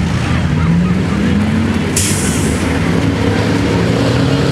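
Truck engines running, their pitch rising and falling, with a short sharp hiss about two seconds in.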